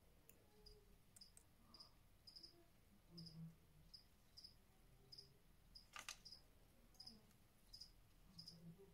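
Cricket chirping faintly: short high chirps, about two a second at uneven spacing, with a single sharp click about six seconds in.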